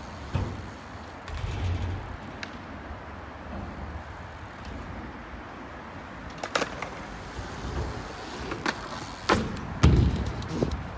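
BMX bike riding skatepark ramps: tyres rolling with a low rumble, and several sharp knocks and clatters from the bike's wheels and frame on the ramps. The loudest is a heavy thud about ten seconds in.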